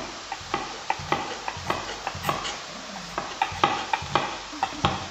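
Chef's knife slicing an onion on an end-grain wooden chopping board: a run of sharp knocks as the blade meets the wood, about four a second and unevenly spaced. Under it, the steady sizzle of steak searing in a pan.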